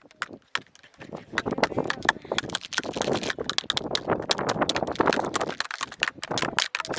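Rapid tapping and clicking on a plastic kolukattai (modak) mould. Quiet for the first second, then dense and fast, with a brief pause near the end.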